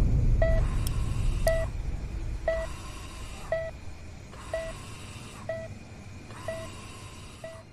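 Operating-theatre patient monitor beeping with the heartbeat, one short beep about every second at a steady pace, while a low rumble fades away over the first few seconds.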